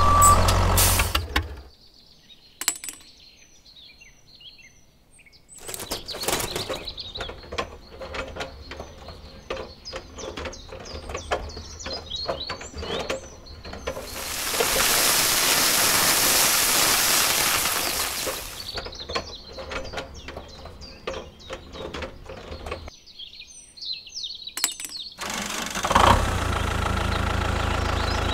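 Toy tractor and tipper trailer worked on sand: scattered clicks and scrapes, then a steady hiss of dry sand pouring out of the tipped trailer bed for about four seconds midway, with light bird chirps in the background. A short beeping sounds at the very start, and a steady hum comes in near the end.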